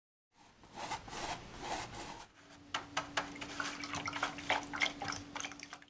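Paintbrush being rinsed in a plastic water cup: watery swishing, then, from about two seconds in, quick irregular clicks and drips as the brush knocks against the cup, over a low steady hum.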